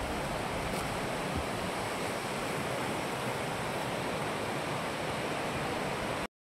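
Steady rushing of water in a rocky woodland stream, with wind buffeting the microphone. The sound cuts off abruptly near the end.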